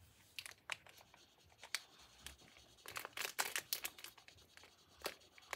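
Plastic Skittles candy bag crinkling as hands rummage in it: scattered sharp crackles, thickest about three to four seconds in.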